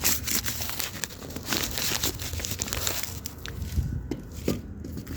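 Paper crinkling and rustling as it is handled, with many small, sharp crackles.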